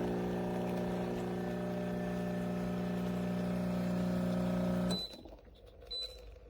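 Espresso machine's pump humming steadily, then cutting off abruptly about five seconds in. A short high beep follows about a second later.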